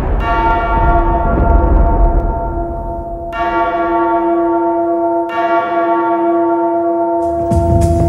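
A large tolling bell struck three times, about a quarter second in, about three seconds in and about five seconds in. Each stroke rings on with a long fading hum. It is part of an ice hockey team's goal horn celebration sequence, which signals a goal scored.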